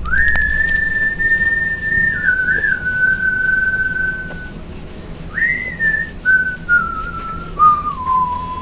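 A whistled melody opening a piece of music: one clear line of long held notes that steps down in pitch, breaks off briefly about halfway, then comes back and steps lower again, over a faint low drone.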